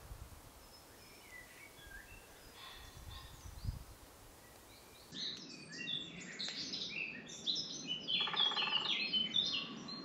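Wild birds singing in a spring woodland: a few faint chirps at first, then from about halfway a busy chorus of quick whistled notes and trills from several birds, louder than before.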